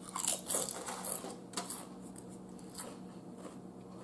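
Lay's potato chips crunching as they are chewed: a quick run of crisp crackles in the first second and a half, then a few scattered crunches.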